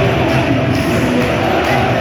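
Loud music played over a football stadium's sound system, with a crowd faintly beneath it.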